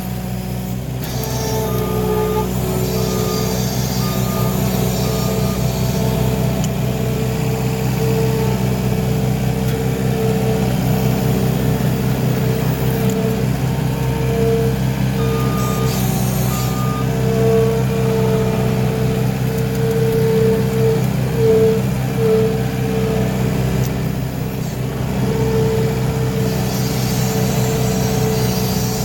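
Skid steer engine running steadily under work, with its backup alarm beeping in two short runs, about two seconds in and again around fifteen seconds.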